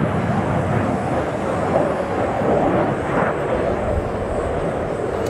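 Jet noise from an F-22 Raptor's twin Pratt & Whitney F119 afterburning turbofans during a low display manoeuvre: a loud, steady rush with most of its weight in the low and middle range, swelling slightly and easing off without any distinct breaks.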